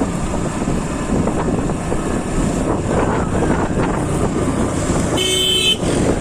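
Steady wind and road noise from a moving motorcycle, with a short vehicle horn honk lasting about half a second near the end.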